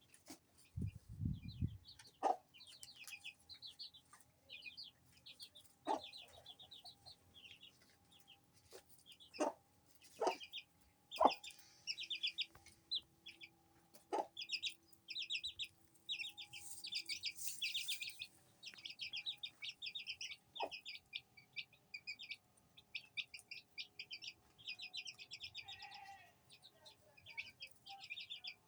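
Aseel hen clucking now and then among the constant high peeping of her chicks.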